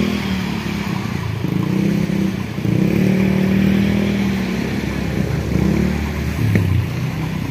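Motorcycle engine running close by on the road, its pitch dipping and rising a few times as it revs.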